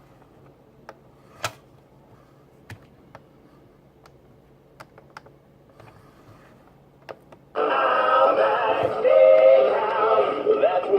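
A few faint, scattered clicks, then about seven and a half seconds in, loud music with singing starts suddenly.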